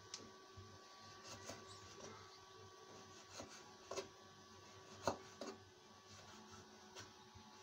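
Kitchen knife slicing a raw potato into fry strips on a wooden cutting board: faint, irregular taps of the blade meeting the board, the loudest about five seconds in, over a faint steady hum.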